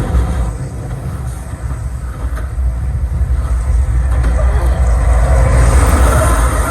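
Sony 7.1.2-channel soundbar and subwoofer playing demo soundtrack at high volume: a loud, deep rumble dominated by heavy bass.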